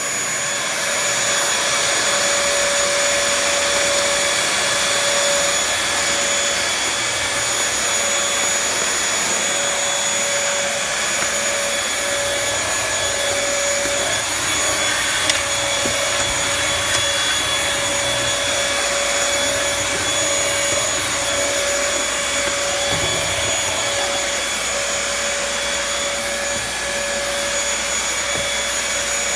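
Vacuum cleaner running steadily: a constant tone over a rushing hiss, with one brief click about fifteen seconds in.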